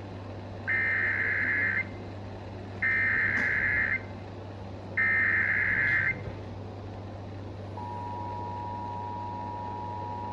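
Emergency Alert System SAME header tones over FM radio: three bursts of rapid digital warbling, each about a second long and about a second apart, carrying the coded severe thunderstorm warning. About eight seconds in, the steady two-tone EAS attention signal starts and holds.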